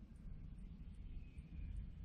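Faint outdoor background: a steady low rumble with faint bird chirps.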